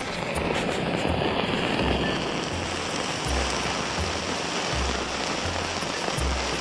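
Road flare burning with a steady hiss, with background music and a bass line underneath.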